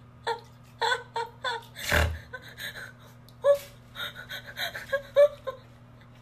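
A run of short, high-pitched vocal cries, each bending in pitch, with a louder noisy burst and low thump about two seconds in.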